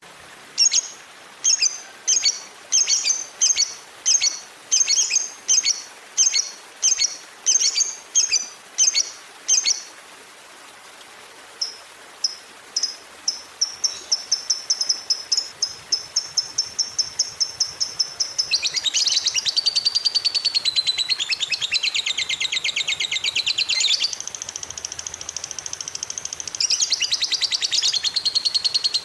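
Lovebird calls: first a run of sharp, high chirps at about two a second for ten seconds. After a short pause the notes return, speed up steadily, and merge into a long, fast chattering trill, the lovebird's 'ngekek'.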